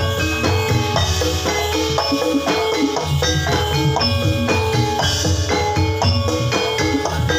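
Live Javanese gamelan music for a jathilan horse dance: bronze metallophones play a fast, steady run of struck, ringing notes over drumming.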